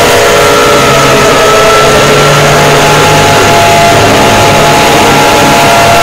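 Mock Emergency Alert System alarm, heavily distorted and clipped: several steady electronic tones sounding together over a harsh noise, a few of them gliding slightly in pitch.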